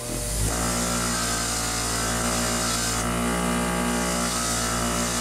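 Electric wire wheel spinning up to speed and running steadily, its wire bristles hissing as they scrub the edge of a chainsaw part clean.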